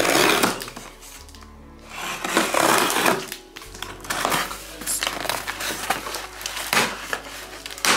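Scissors cutting through packing tape and a cardboard box being pulled open, over background music. There is a long scraping, tearing stretch at the start and again about two seconds in, then a run of short crackles as the flaps are handled.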